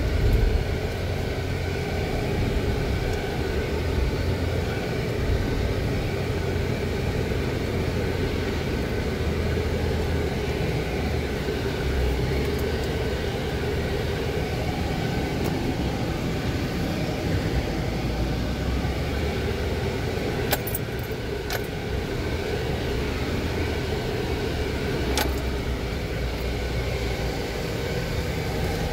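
Jeep Wrangler engine and drivetrain running steadily under load, heard from inside the cab, as it crawls up a steep dirt trail. There are a few sharp clicks or rattles about two-thirds of the way through.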